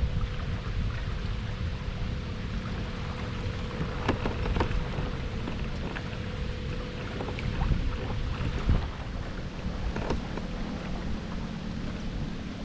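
Wind buffeting the action camera's microphone on a fishing kayak out on the lake, under a faint steady hum, with a few sharp clicks scattered through.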